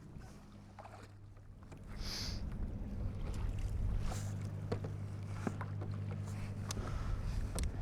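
Kayak trolling motor humming steadily, a low electric whine that picks up about two seconds in. Water laps and small knocks sound against the kayak hull, with a brief splash or hiss about two seconds in.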